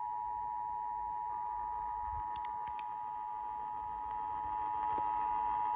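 Emergency Alert System attention signal: the standard two-tone alert (853 and 960 Hz together) sounding as one steady, unbroken tone over FM radio during a Required Monthly Test. A fainter, slightly higher tone joins it about a second in.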